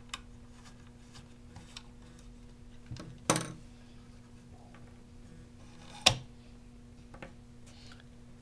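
Sharp clicks and knocks of a GSG-5 rifle's original handguard being worked loose and taken off by hand. There are two loud knocks, about three and six seconds in, and a few lighter clicks, over a steady low hum.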